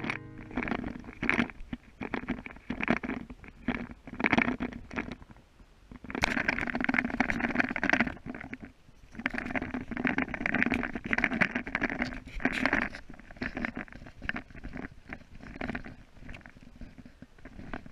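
Hard rain and wind on a canvas wall tent, heard from inside the doorway, coming and going in uneven surges with brief lulls.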